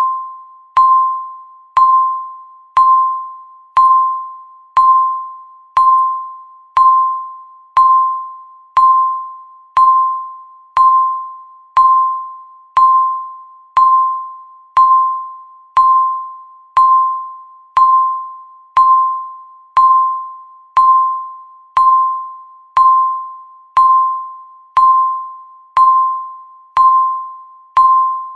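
Countdown timer's tick sound: a short, single-pitched chime-like tick that rings and fades, repeating evenly once every second.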